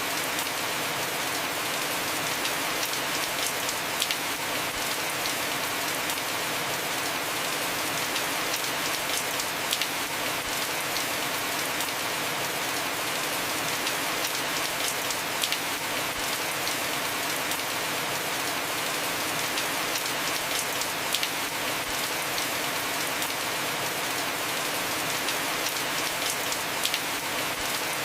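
Heavy rain falling steadily on a house roof, an even hiss with a sharper drop tick every five or six seconds.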